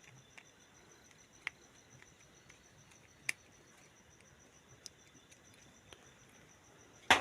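Faint, steady pulsing chirp of a cricket, with a few small sharp clicks from working a wire into a switch terminal. The clearest clicks come about a second and a half and three seconds in, and a louder knock comes at the very end.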